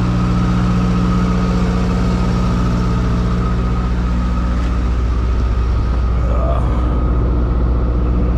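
Peterbilt 379 semi truck's diesel engine idling steadily.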